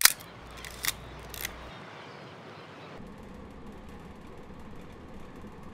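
Sharp mechanical clicks of a film camera: one loud click at the very start, then a few lighter clicks in the next second and a half, like a shutter firing and the film being advanced. After them comes a steady low hiss.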